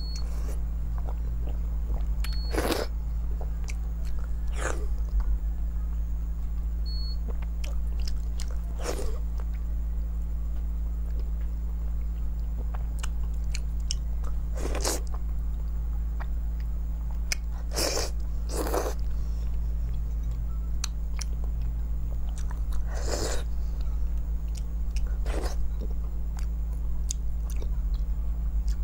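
Close-miked eating of crispy fried crab: bites and chewing, with a sharp crunch every few seconds among quieter chewing, over a steady low hum.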